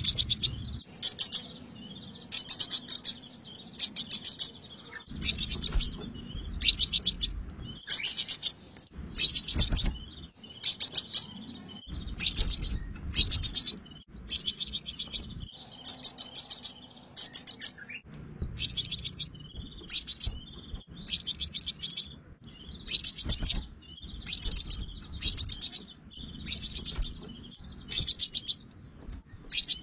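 Sunbird calling: short bursts of rapid, high, thin chirps, one after another about every second.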